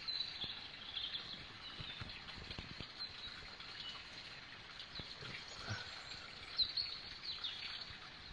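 Small songbirds chirping and calling, with short high whistles and falling notes, over the steady babble of splashing water.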